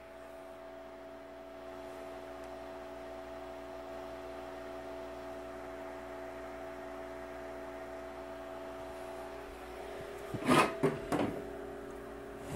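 A steady hum of a few pitches, then several sharp knocks and clatters about ten to eleven seconds in as hands handle the opened Dell PowerEdge R710 server chassis and its parts. The server is unpowered, so its fans are silent.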